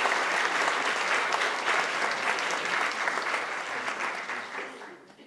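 Audience applause, a dense patter of many people clapping that thins out and dies away about five seconds in.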